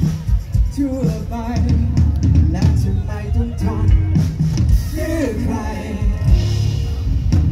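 A live rock band playing through a PA, with electric guitars, bass, keyboard and a drum kit keeping a steady beat, and a male voice singing over it.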